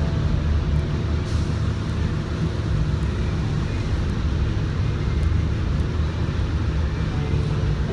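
Steady rumbling noise in a paint spray booth: the booth's ventilation running, with the air hiss of a spray gun laying down base coat on a fish mount.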